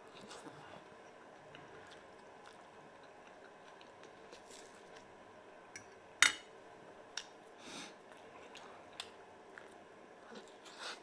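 Close-up chewing and mouth sounds of a man eating pickled herring and boiled potato, with scattered small clicks. About six seconds in, one sharp click, the loudest sound, as the fork knocks the plate.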